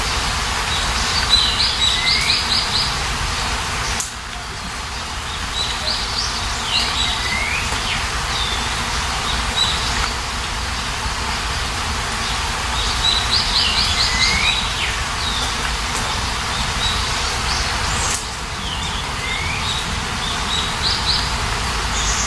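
Steady rain with a songbird singing over it. The bird repeats a short phrase several times: a quick trill of rapid high notes, then a short sweeping whistle. The rain dips abruptly twice.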